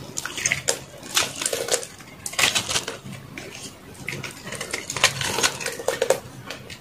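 Knife blade carving a dry, crumbly re-molded bar of soap: repeated crunchy, crackling strokes as flakes break away from the block.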